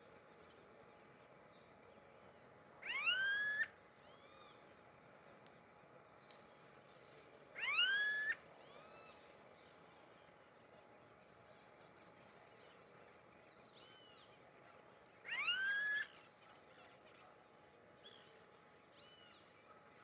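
Smooth-billed ani calling: three loud, drawn-out calls several seconds apart, each rising in pitch and then levelling off. Faint short bird calls can be heard between them.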